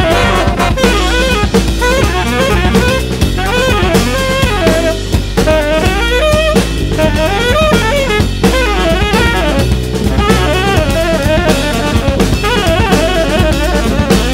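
Jazz music: a saxophone playing a bending melody over a drum kit.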